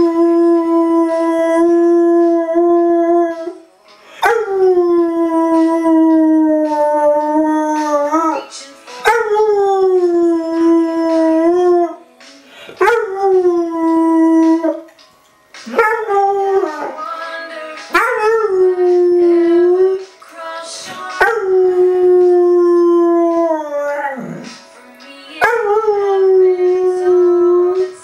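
A black Labrador–pointer mix dog howling along to recorded country music: a run of long held howls, each two to four seconds with short breaks between, most sliding down slightly at the start and flicking upward at the end.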